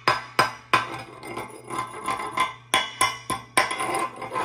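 Steel chipping hammer striking and scraping slag off a 7018 stick-weld bead on a steel plate. It makes sharp metallic taps, each ringing briefly, two or three a second, with scraping and rattling of loose slag flakes between the strikes. The slag is coming off easily, which the welder takes as a sign of a correctly run, narrower bead.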